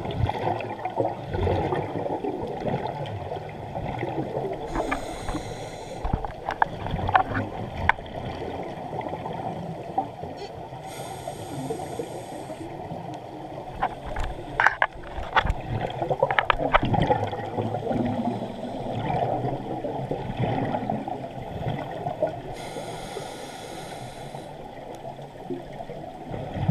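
Underwater sound through a GoPro's waterproof housing: a steady, muffled water rumble, with a scuba regulator's breathing hiss and bubbles coming three times, several seconds apart. Scattered sharp clicks come in clusters about a quarter and halfway through.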